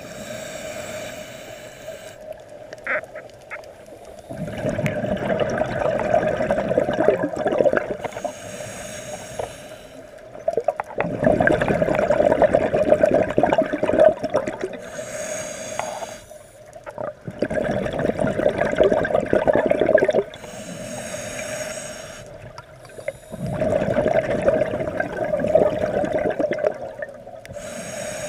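Scuba diver breathing through a regulator underwater: a short hiss on each inhale, then a longer rush of exhaust bubbles on each exhale, about four full breaths, over a steady hum.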